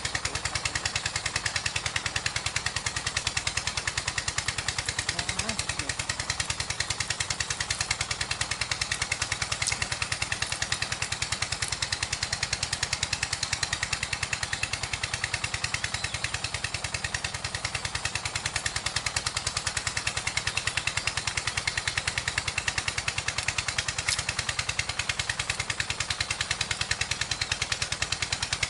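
Small engine running steadily with fast, even firing pulses and no change in speed.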